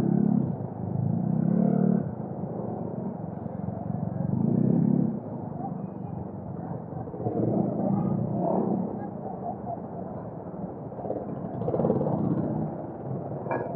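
Vehicle engine and road noise heard through an action camera, muffled, swelling louder and easing back several times.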